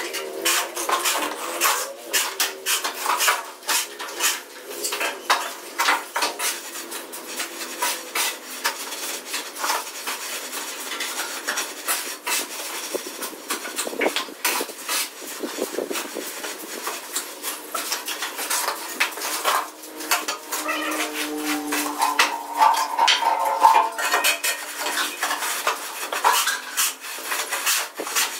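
A steel trowel scraping and tapping over and over on wet cement mortar as a floor screed is levelled and smoothed. A short pitched whine joins in about three-quarters of the way through.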